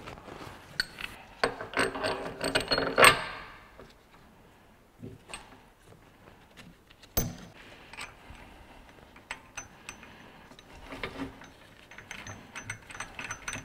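Metal clinking and clicking of a bushing press kit's cups, threaded rod and nut being fitted and the nut spun down by hand, as the tool is set up to press a new rubber bushing into a BMW E46 rear subframe mount. The clatter is busiest in the first few seconds, then there are scattered light clicks with one sharper click in the middle.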